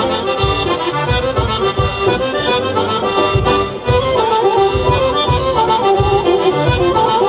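Accordion playing a traditional folk dance tune over a steady low beat.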